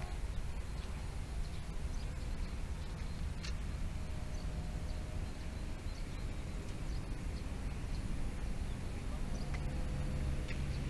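Wind buffeting the microphone with a steady low rumble, over which the distant model airplane's motor and propeller whine faintly, the pitch shifting as the plane manoeuvres.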